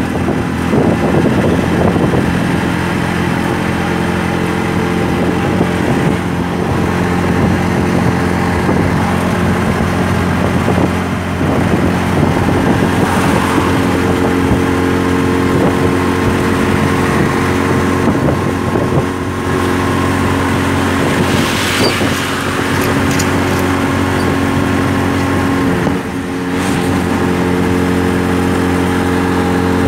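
Auto rickshaw's small engine running steadily at speed, heard from inside the open cabin with wind and road noise; the level dips briefly a couple of times.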